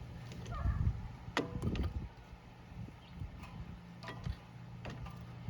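Metal clinks and knocks from a caliper piston compression tool being worked against a disc brake caliper, with sharp knocks about a second and a half in and again around four to five seconds, over a steady low hum.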